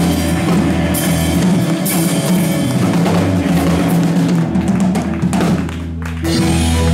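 A live band playing: electric guitar, electric bass and drum kit, with a harmonica played into a vocal microphone.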